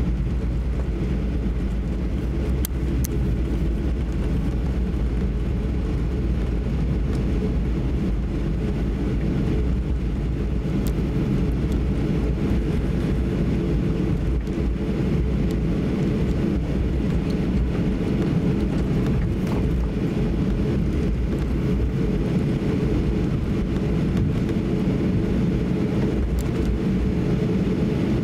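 Cabin noise inside a Boeing 737-800 taxiing, its CFM56-7B engines at low taxi thrust: a steady low rumble that neither rises nor falls. A few faint clicks come from the cabin.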